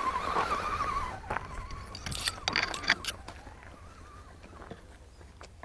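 Scale RC rock crawler's electric motor and gears whining steadily as the truck climbs over rocks. About two seconds in, loose stones crunch and clatter, and then the sound fades quieter.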